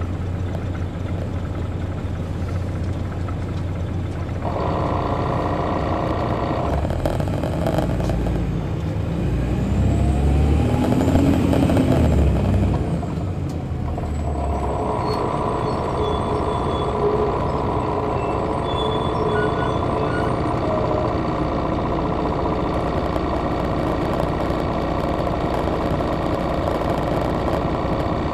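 Detroit Diesel Series 60 diesel engine of an MCI D4000 coach, heard from the rear seats. It runs steadily, grows louder about four seconds in, and swells to its loudest with a climbing then falling whine around the middle. It drops back and runs steadily for the rest.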